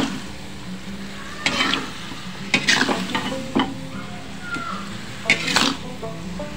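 A metal spoon stirs and scrapes long beans in coconut-milk sauce around a metal wok, in a handful of scraping strokes about a second apart. The sauce sizzles underneath in the hot pan just after the stove has been turned off.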